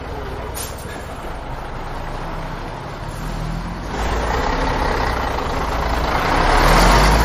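Heavy truck engine and road noise with a low rumble, growing louder from about four seconds in to a peak near the end, like a truck driving past.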